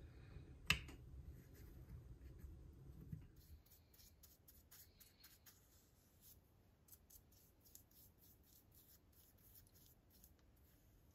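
One sharp click about a second in as a turned wooden lid disc is pressed into its recess, then faint, quick scratchy dabs of a small brush working epoxy resin over the wooden base.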